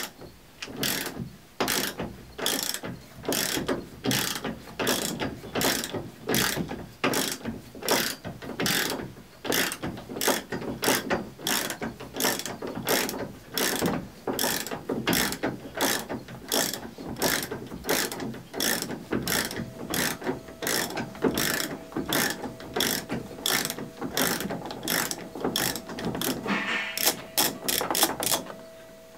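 Socket ratchet wrench clicking in steady back-and-forth strokes, about two a second, backing out a grade 8 roll-bar mounting bolt; near the end a quick run of clicks as the ratchet is spun faster.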